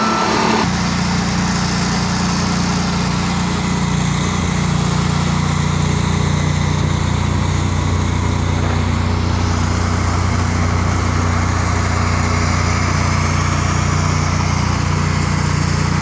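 Detroit Diesel engine of an Ingersoll Rand MW-175 road milling machine running steadily.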